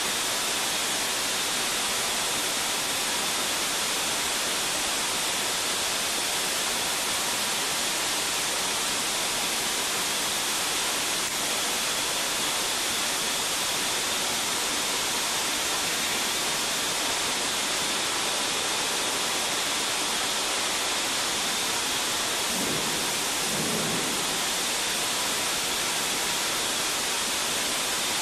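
Steady loud rushing noise of a live diesel-fuel training fire and firefighting water spray in an enclosed mock engine room. A brief deeper sound stands out about three quarters of the way through.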